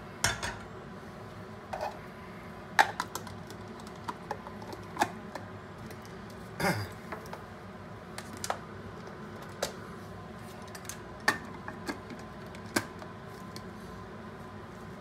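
Scattered light clicks and knocks of plastic parts as a mini food processor's lid and motor unit are fitted onto its bowl, with one duller knock about seven seconds in.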